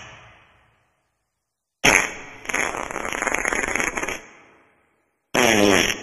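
Wet farts, sputtering. One starts sharply about two seconds in and sputters on for about two seconds before fading. A shorter, buzzier one starts near the end, and the fading tail of another is heard at the very start.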